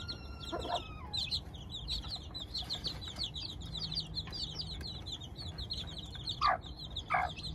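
A brood of two-week-old chicks peeping constantly in quick, high chirps. A hen clucks twice near the end, louder and lower than the chicks.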